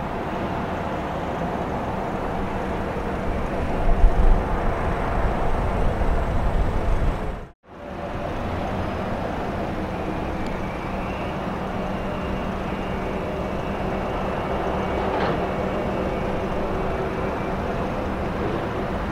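Steady drone of container-terminal machinery, straddle carriers and gantry cranes at work, with a deeper rumble swelling a few seconds in. The sound cuts out for a moment about halfway, then carries on steadily with a faint high whine and a single click.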